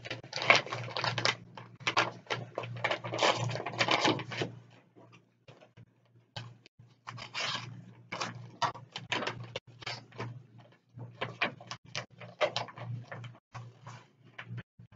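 Paper rustling and crinkling as a bid envelope is opened and the sheets inside are pulled out, unfolded and handled. It is densest and loudest in the first four seconds or so, then comes in shorter, sparser crinkles.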